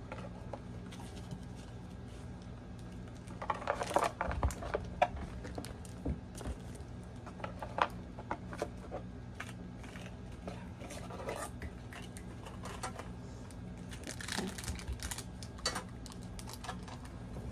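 Cardboard, paper and plastic-wrapped contents of a Pokémon trading card Elite Trainer Box being handled: scattered light clicks and taps with brief rustles, busiest about four seconds in and again near fifteen seconds. A steady low hum sits underneath.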